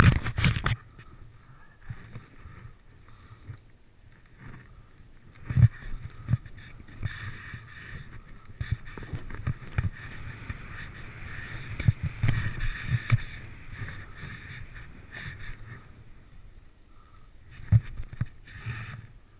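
Deep powder snow swishing under a rider going downhill, with wind noise on the microphone and a few sharp thumps from the camera being jolted.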